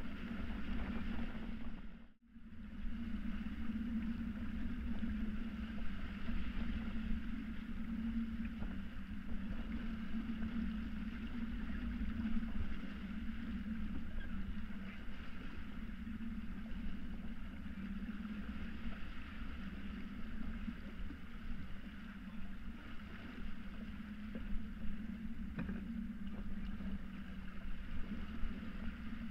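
Water rushing and hissing along the hull and wake of a Hanse 355 sailing yacht moving fast under sail, with wind rumbling on the microphone and a steady low hum. The sound drops out briefly about two seconds in.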